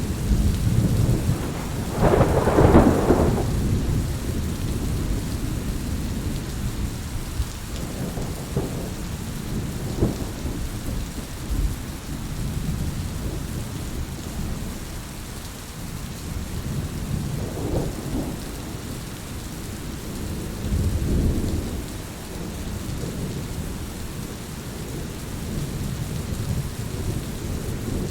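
Steady rain falling with deep rolling thunder. The loudest rumble swells about two seconds in, and fainter rumbles follow several times later.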